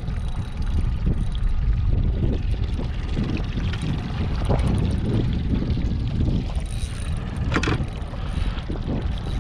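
Mercury outboard motor running steadily at trolling speed, keeping the boat moving forward while a hooked flathead is played beside it. Short splashes come from the fish thrashing at the surface, the sharpest one about three-quarters of the way through.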